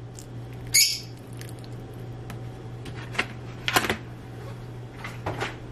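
A few light clinks and scrapes of a metal fork against a ceramic bowl of wet garlic and sofrito paste, the sharpest about three to four seconds in, over a steady low hum.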